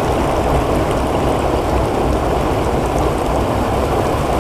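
Shallow stream rushing steadily, water spilling over a small stone weir and running over stones.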